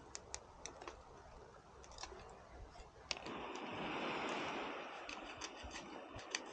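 Food frying in hot oil in a pan: scattered crackles and pops, then a steady sizzle comes up about halfway through with the crackling still over it.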